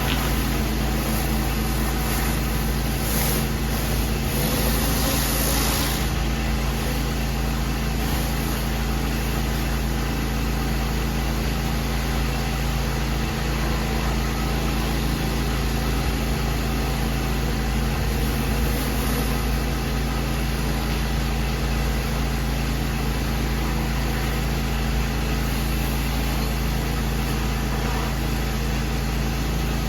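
Pressure washer running steadily: an engine-driven unit with a constant low hum and the hiss of the spray, unchanging throughout.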